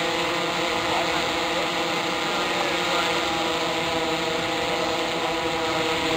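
Large octocopter hovering, its eight electric motors and propellers making a steady, many-toned buzzing hum.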